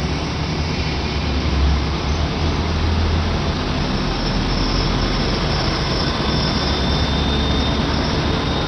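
Steady running noise of a diesel railcar heard from inside the carriage, strongest in the low rumble, with a faint high whine setting in about six seconds in.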